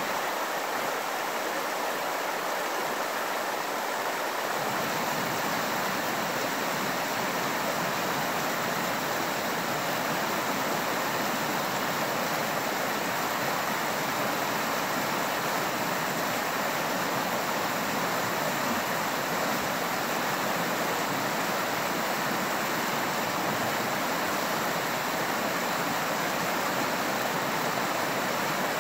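Rocky creek rushing over boulders and small rapids: a steady, even rush of water, its low rumble filling in about four seconds in.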